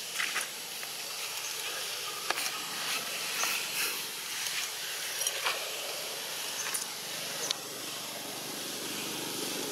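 Steady high hiss of outdoor background noise, with about ten short, sharp clicks or chirps scattered through it.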